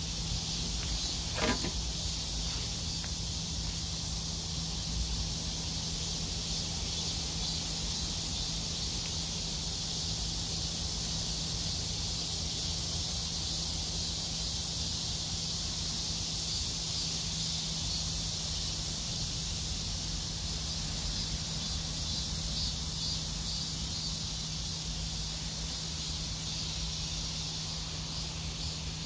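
Steady high-pitched outdoor insect chorus, a continuous hiss with a faint pulsing, over a steady low hum. A single sharp click sounds about a second and a half in.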